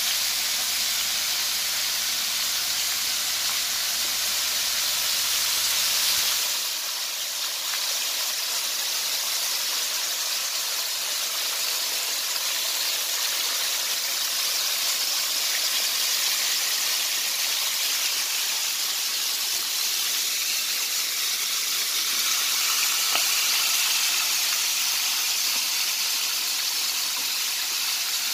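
Hot oil sizzling and bubbling steadily around flour-coated chicken pieces deep-frying in a pan.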